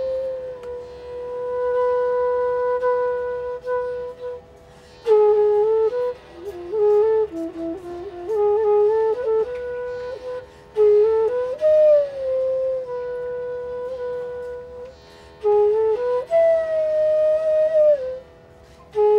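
Background music: a solo flute playing a slow melody of long held notes, with slides and quick ornamented turns between them and short pauses between phrases.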